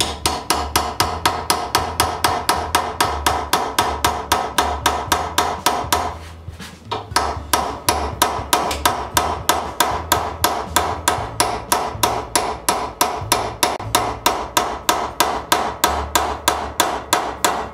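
Hammer tapping a cape chisel in a quick, steady rhythm of light blows, chipping a round-bottomed groove into a steel bar; each blow rings sharply off the metal. The tapping stops for about a second some six seconds in, then carries on.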